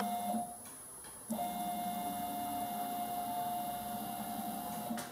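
Stepper motors of a desktop robot arm whining steadily as the arm is jogged downward by joystick. The whine stops about half a second in and starts again about a second later, running until near the end.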